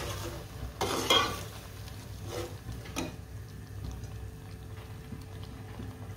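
Slotted metal spatula stirring and scraping a wet masala of tomatoes, yogurt, onions and spices frying in ghee in an aluminium pot, with a soft sizzle underneath. The loudest scrapes come about a second in, with two shorter ones a little after two seconds and at three seconds.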